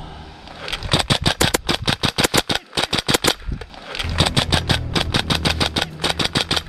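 Gas blowback airsoft gun firing two long strings of rapid shots, about eight sharp clacks a second, with a short break of under a second between the strings.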